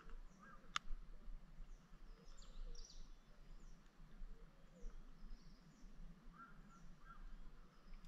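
Quiet outdoor ambience with scattered short bird chirps and calls, and a single sharp click just under a second in.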